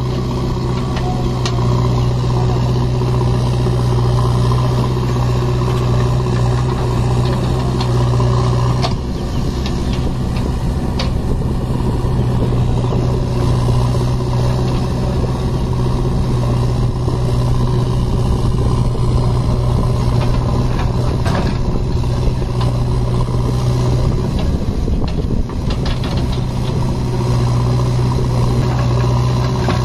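Heavy diesel engines of a JCB backhoe loader and a tipper truck running steadily. The engine note dips about nine seconds in and shifts again around twenty-five seconds.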